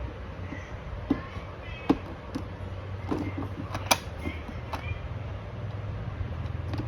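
Scattered light clicks and knocks of small plastic toy-fridge parts being handled, the loudest about four seconds in, over a steady low hum.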